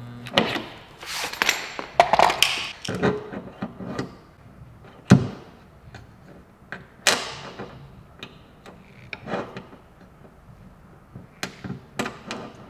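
Slide hammer dent puller hooked onto a stud welded to a car's rear quarter panel, its weight slammed back against the stop. The result is a handful of sharp metal clanks at irregular intervals, each one tugging the dent outward.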